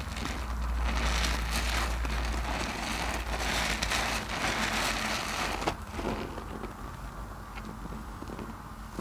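Hands squeezing and kneading a lathered mesh bath loofah in thick soap foam: a dense wet hiss of suds, loudest in the first half, with one sharp click near the middle. It is quieter from about six seconds in, as a hand works through the foam.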